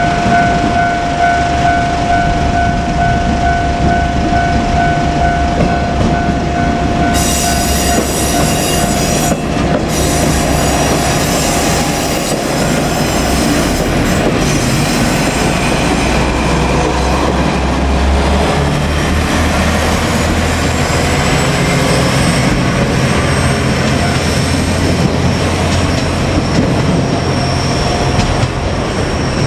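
A level-crossing warning bell rings steadily for the first several seconds, under the running of a two-car KiHa 47 diesel railcar set. From about seven seconds in, the railcars pass close by with engine rumble, wheel noise on the rails and high-pitched wheel squeal.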